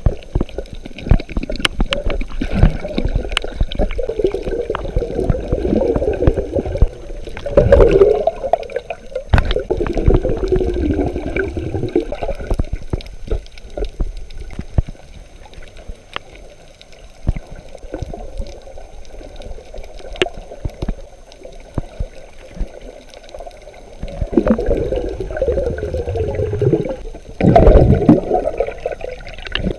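Muffled underwater sound picked up by a submerged camera: water sloshing and gurgling against the housing in swells, with scattered clicks and crackles. The water noise is loudest about eight seconds in and again near the end.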